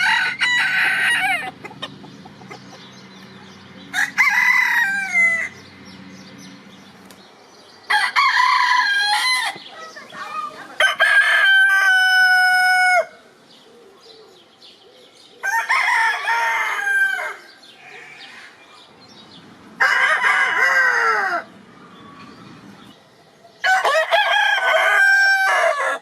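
Rooster crowing repeatedly: about seven full cock-a-doodle-doo crows, each one to two seconds long, coming roughly every four seconds with quiet gaps between.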